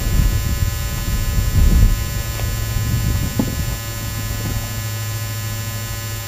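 Steady electrical hum with a stack of constant tones. There is low rumbling on the microphone in the first two seconds and a couple of faint clicks in the middle. The motor is not running.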